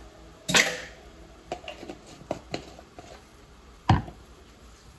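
Kitchen clatter: a sharp knock about half a second in, then a few light clicks of utensils being handled, and a heavier knock near the end.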